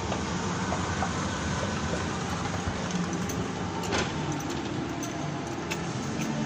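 Steady low rumbling background noise of a shopping mall interior, with one sharp knock about four seconds in.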